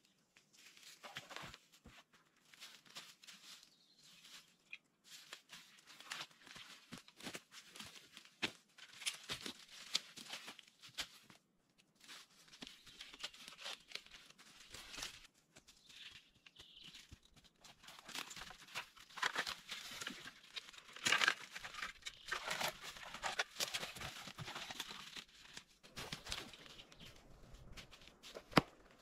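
Dry leaves, twigs and brush rustling and crackling as they are handled, with irregular sharp snaps and tearing, busiest about two-thirds of the way through.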